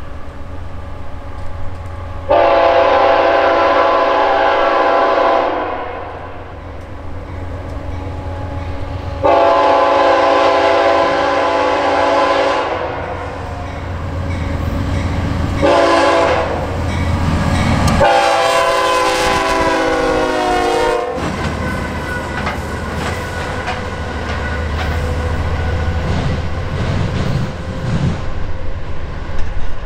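Horn on a pair of Norfolk Southern GE AC44C6M diesel locomotives sounding the grade-crossing signal: two long blasts, a short one and a final long one that slides down in pitch. After the horn the diesel engines rumble and the wheels clack over the rail joints.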